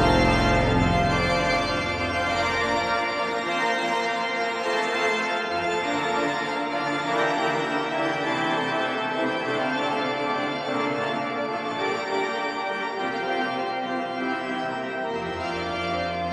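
Pipe organ playing held chords. Deep pedal bass notes fade out in the first few seconds and come back in near the end.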